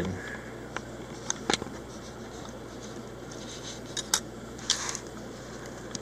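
Small sharp clicks and taps of a TSA luggage lock's plastic housing and brass spring being handled and fitted by hand, with a brief scrape about five seconds in, over a steady low hum.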